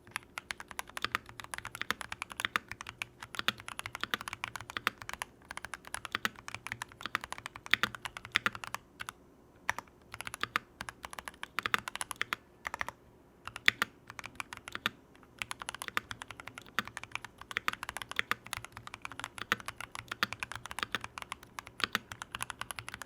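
Typing on a mechanical keyboard fitted with Drop Holy Panda X tactile switches: a quick, continuous run of key clacks with a few brief pauses around the middle.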